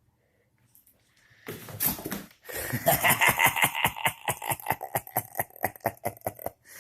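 A cat clawing rapidly at a fabric suitcase, trying to dig her way in: a short scuff, then a long fast run of scratching strokes, about seven a second, that stops near the end.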